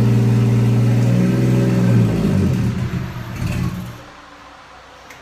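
Toyota 1JZ inline-six engine running steadily, then stumbling and dying between about two and a half and four seconds in. The owners put the stall down to a blown fuse.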